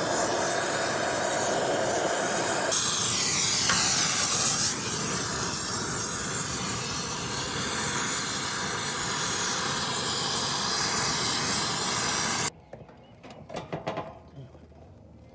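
Brazing torch flame hissing steadily while a copper refrigerant line is brazed onto a Goodman GSX14 condenser's brass service valve. The hiss cuts off suddenly about three seconds before the end, leaving only a few faint handling clicks.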